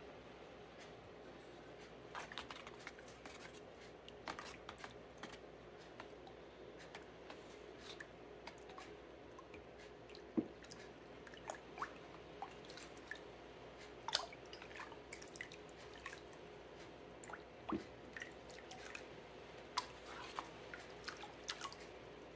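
Metal spoon stirring liquid in a plastic tub: faint swishing with scattered light taps and clicks of the spoon against the container, a few of them a little louder.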